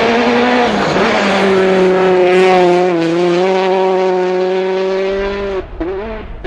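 Citroën DS3 rally car's turbocharged four-cylinder engine held at high revs at a nearly steady pitch, with a couple of slight dips. Near the end it drops away and cuts off suddenly.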